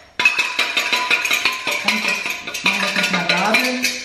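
A small metal whisk beating salad dressing in a stainless steel jug: quick, regular metallic clinking against the jug's sides, with the jug ringing.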